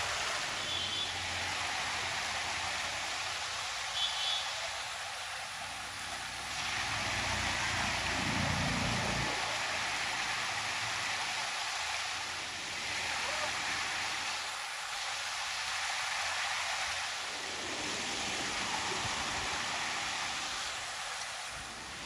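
Small rocky stream running over boulders, a steady rushing of water. A few short high chirps come in the first few seconds, and a low rumble swells and fades about eight to nine seconds in.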